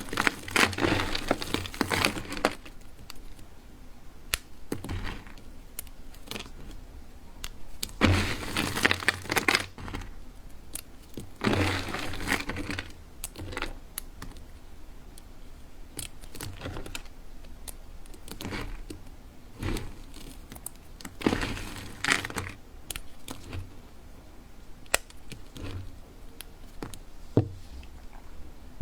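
Dry soap being cut and crushed: crunchy crackling in several bursts of a second or two, with sharp single cracks and clicks between them.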